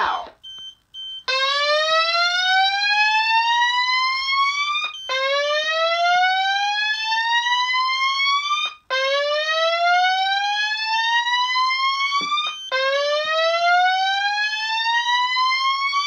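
Fire alarm sounder going off in a whoop tone: a long rising sweep about every four seconds, four in a row, each cut off by a short gap. It starts about a second in, after a few short beeps.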